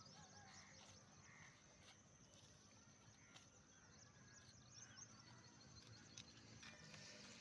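Near silence: faint outdoor ambience with a low hum and many faint, short, high chirps.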